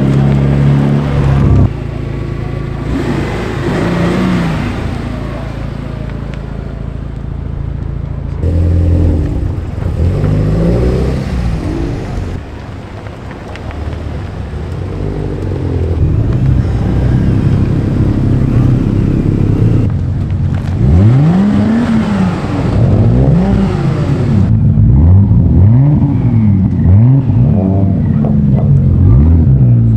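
Sports cars' engines as they pull away one after another at low speed, Mazda MX-5 roadsters among them. In the last third an engine is revved again and again, about eight quick blips whose pitch climbs and drops.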